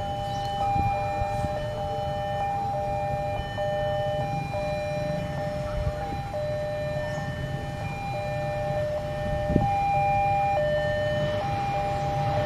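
Two-tone electronic warning alarm that switches between a higher and a lower note about once a second, typical of a railway level-crossing alarm sounding for an approaching train. Under it, the low rumble of the approaching diesel locomotive grows louder near the end.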